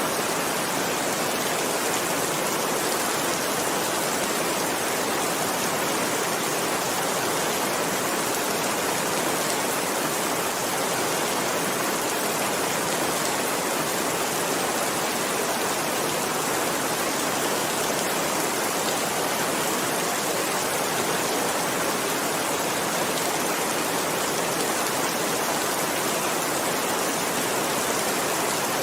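Steady rain: a dense, even hiss that does not change, with no thunder.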